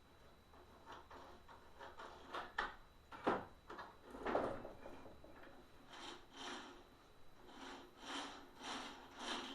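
Hand work on the plastic parts of a disassembled carpet cleaner: scattered clicks and knocks, two louder knocks in the middle, then a run of rhythmic rubbing or scraping strokes about two a second.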